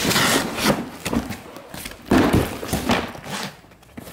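Cardboard boxes being handled on a concrete floor: a few thumps, with cardboard scraping and rustling between them. The loudest comes about two seconds in.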